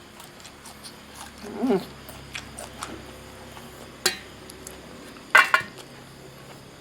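Eating at a meal: soft chewing and small clicks of dishes and cutlery. There is a short pitched call with a rising-then-falling pitch about a second and a half in, a sharp clink about four seconds in, and a louder clatter a little after five seconds.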